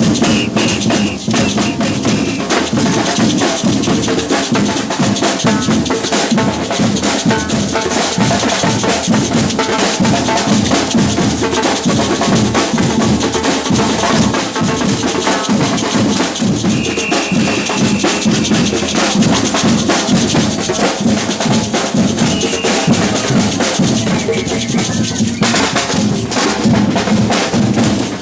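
Batucada drum ensemble playing a continuous samba rhythm on deep bass drums and snare drums, the strokes dense and unbroken.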